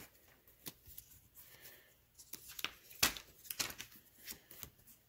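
Paper grab bag and stickers being handled: scattered short rustles and clicks, the loudest about three seconds in.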